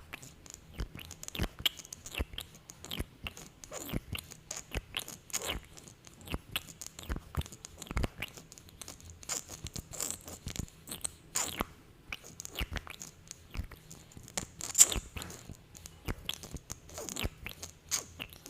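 Close-miked sticky lip sounds: lips coated in lip gloss pressing together and pulling apart in quick, irregular wet smacks and pops, with one louder pop near the end.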